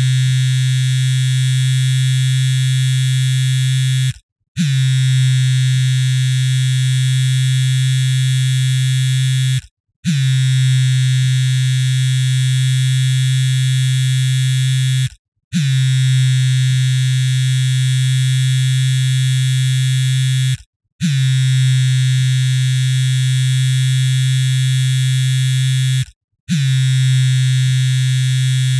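Mobile phone vibrating: a low, steady buzz that runs for about five seconds at a time, broken by brief silent gaps five times.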